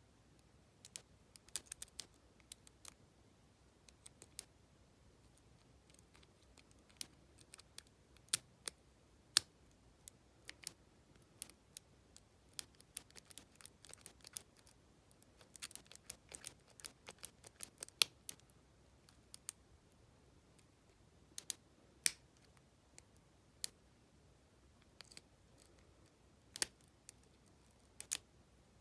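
Lock pick scraping and clicking against the pins and warding inside an Abus T65AL/40 padlock's keyway, with irregular sharp metallic clicks, some close together and some a second or more apart, as pins set and drop under tension.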